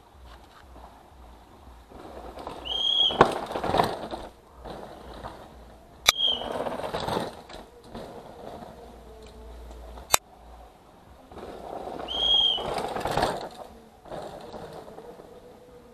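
Downhill mountain bikes passing one at a time on a loose dirt track: three swells of tyre rush and bike rattle, about three, seven and twelve seconds in, each opened by a short high whistle. A few sharp clicks in between.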